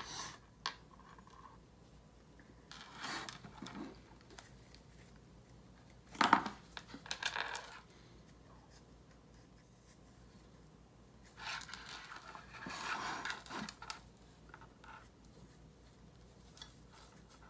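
Flower stems being handled and pushed into floral foam in small ceramic teapots and teacups: scattered scrapes, rustles and light clicks. The loudest knock comes about six seconds in, and a longer spell of rustling and scraping follows a few seconds later.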